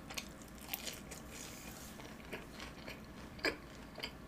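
Biting into and chewing a deep-fried cheese ball with a crisp shell and chewy, cream-filled inside: a few scattered soft crunches and mouth clicks, the loudest about three and a half seconds in.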